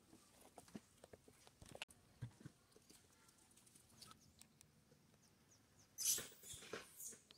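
Faint scattered clicks and rustles, then about six seconds in a short burst of high-pitched squeaks from a newborn monkey.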